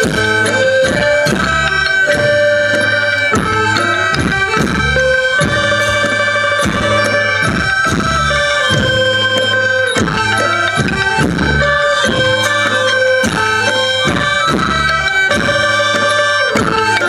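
Thai folk music: a reedy wind instrument plays a melody over steady held drone tones, with a steady beat of drum strokes.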